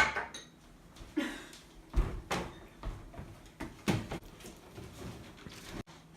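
A series of irregular knocks and clicks of parts being handled and fitted, as the dishwasher is put back together after its drain pump was taken apart; the loudest knock comes right at the start.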